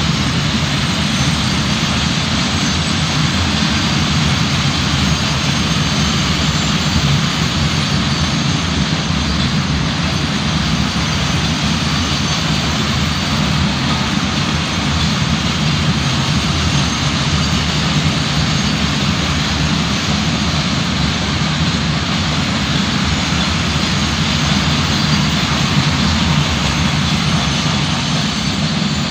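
Long freight train of open-top wagons running past at speed: a loud, steady rumble of wheels on the rails.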